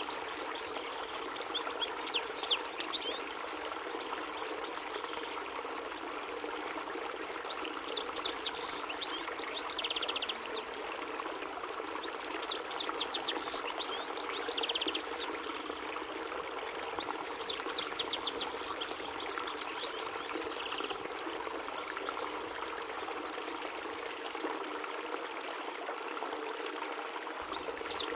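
European goldfinch (chardonneret) singing: bursts of quick, high twittering phrases a few seconds apart, mixed with short buzzy notes, over a steady rushing hiss.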